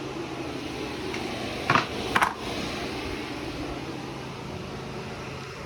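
Two sharp knocks about half a second apart, a little under two seconds in, as the plastic radiator fan assembly is worked free of a snag, over a steady background hum.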